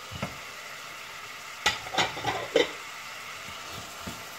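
Chopped onion and garlic sizzling in oil in a stainless steel pot while a wooden spoon stirs them, knocking and scraping against the pot four times in quick succession about halfway through.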